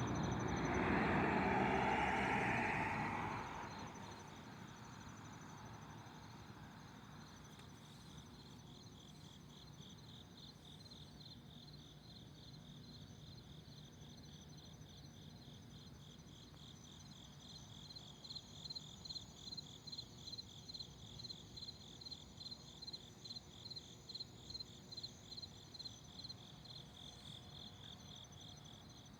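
Night insects calling: crickets trill steadily, joined about two-thirds of the way in by a rhythmic chirping at about two a second. A louder rush of noise opens the first three seconds, then fades out.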